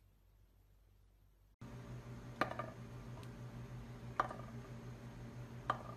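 Near silence, then about a second and a half in a low steady room hum starts. Three short, sharp clicks come over it, roughly a second and a half apart.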